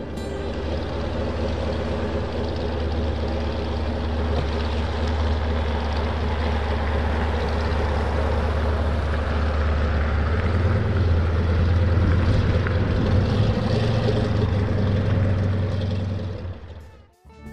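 Light propeller aircraft's piston engine running steadily with a strong low drone. It rises a little in pitch and loudness about ten seconds in, then cuts off near the end.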